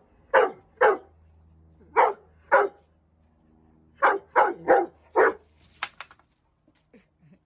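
Rottweiler barking: eight loud, short barks in groups of two, two and four, followed by two sharp clicks about six seconds in.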